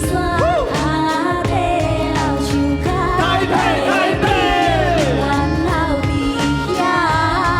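Music with a steady beat and a bass line, under a voice singing long, sliding, ornamented phrases without words in an Asian, Taiwanese-opera-like style.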